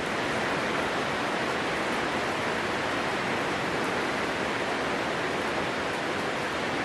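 Rain falling steadily, a dense, even hiss.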